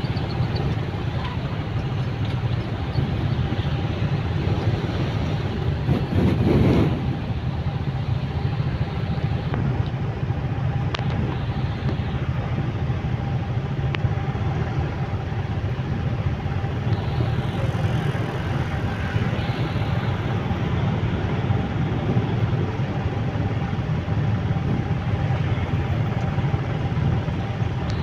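Road traffic standing in a jam: motorcycle and car engines idling steadily close by, with one brief louder swell about six and a half seconds in, like a nearby engine revving or passing.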